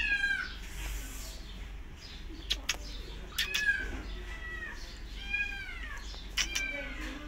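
Feral kitten crying: about four high meows, each falling in pitch, with a few short sharp clicks between them.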